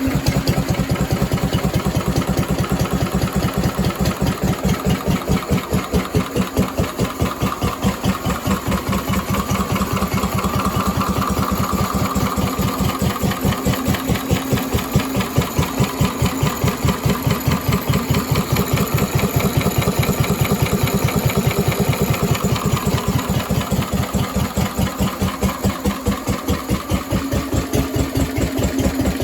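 Lister D single-cylinder stationary engine running steadily without load, thumping away with an even beat of firing strokes.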